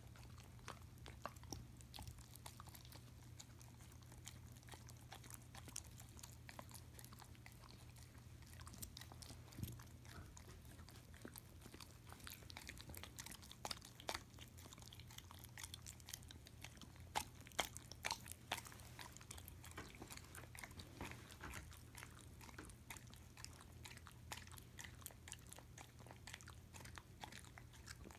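German Shepherd licking and smacking creamy peanut butter off a metal spoon: faint, irregular wet clicks and smacks of tongue and jaws, with a few louder ones about two-thirds of the way through, over a steady low hum.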